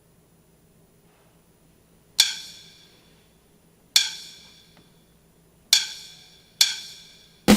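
A count-in of four sharp percussive clicks with a short ring, two slow and then two quicker, setting the tempo. Drums come in right at the end as the music starts.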